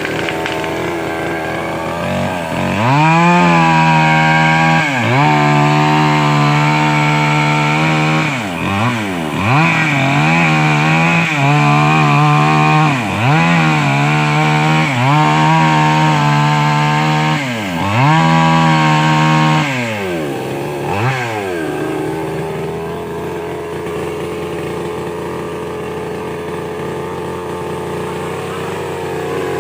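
Two-stroke chainsaw revved to full throttle about three seconds in, cutting in long stretches. The engine note dips and climbs again several times, then drops back to a lower, quieter idle about twenty seconds in.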